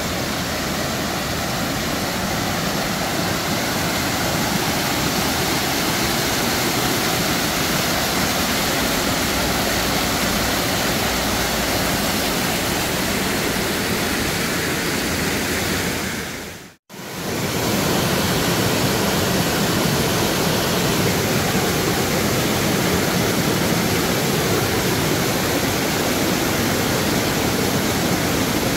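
Waterfall rushing down rock ledges: a loud, steady wash of falling water. It cuts out for a split second a little past halfway, then carries on as before.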